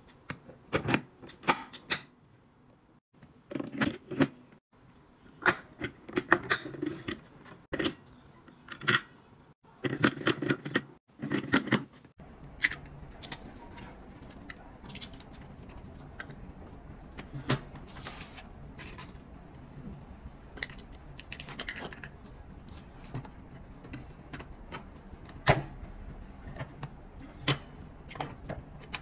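Irregular plastic and metal clicks, snaps and knocks from handling a hand-press button maker. Dense clicking comes first as the purple plastic mold is fitted onto its metal post, then sparser sharp clicks as badge parts and the press are handled, over a faint steady background hiss from about midway.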